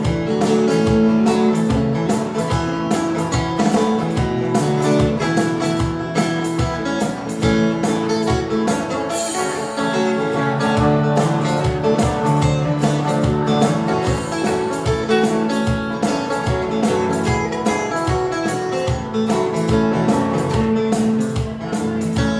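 Band playing an instrumental break in a country-style song: strummed acoustic guitar over a steady beat, no singing.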